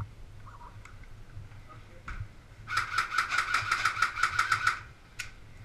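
Airsoft rifle firing a full-auto burst: a rapid string of shots, about eight a second for about two seconds, over the whine of the gun's motor, followed by one more single shot near the end.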